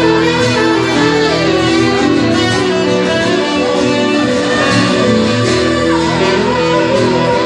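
Live band music: acoustic guitar and keyboard, with a saxophone playing a held melody line over them.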